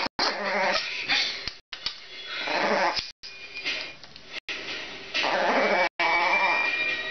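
Chihuahua puppy growling in rough, uneven bouts while held and kissed, broken by several brief silent gaps.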